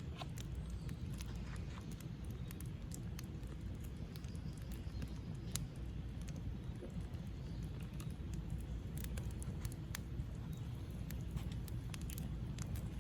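Wood campfire crackling, with sharp irregular snaps and pops over a steady low rumble.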